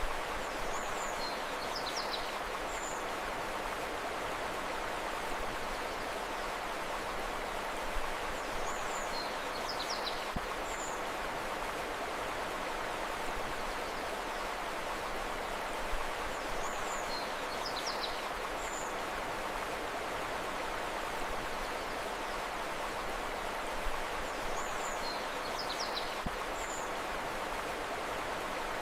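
Steady rushing of a flowing river, with a short phrase of high bird chirps that comes back in the same pattern about every eight seconds, four times.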